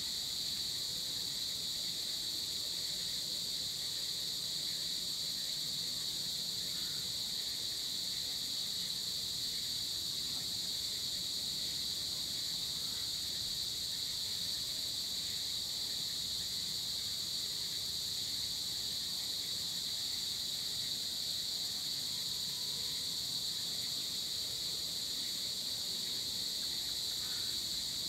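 Steady evening chorus of insects, an even, unbroken high-pitched trill, with a few faint chirps below it.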